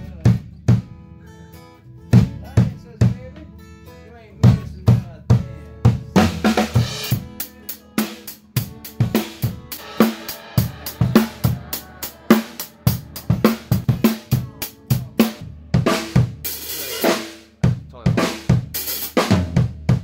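A live band plays a country song without vocals. An acoustic drum kit keeps a steady kick-and-snare beat over bass guitar and other sustained instruments, with cymbal crashes near the end.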